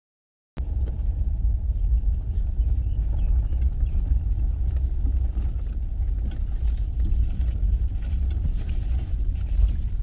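Low, steady rumble of a vehicle driving slowly over a rough dirt track, heard from inside the cabin. It cuts in suddenly about half a second in.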